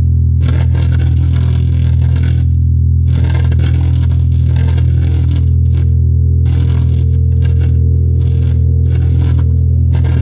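Experimental noise-music soundtrack: a steady deep drone under harsh, distorted crackling noise that cuts in and out abruptly. A held higher note joins about halfway through.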